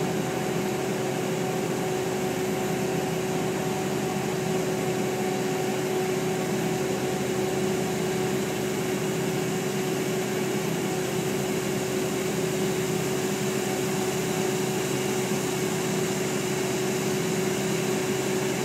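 Compact horizontal directional drilling rig running steadily: its diesel engine and hydraulics give an even drone with a constant hum at one pitch.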